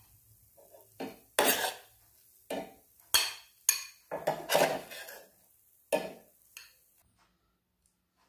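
Metal spoon scraping and knocking against a pan and a glass bowl while cooked potato filling is scooped out of the pan: about eight separate scrapes and clinks, stopping about seven seconds in.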